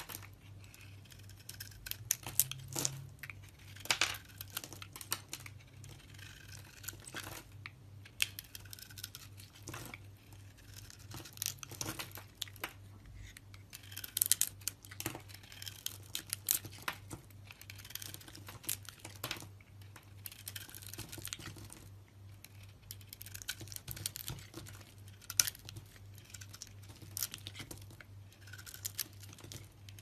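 Knife blade shaving and carving a bar of soap: irregular scraping strokes with crisp crackling as shavings and chunks break off the bar, over a faint steady low hum.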